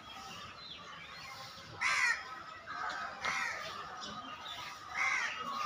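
Crows cawing in the trees: a few short, harsh caws, the loudest about two seconds in, with more near three and five seconds.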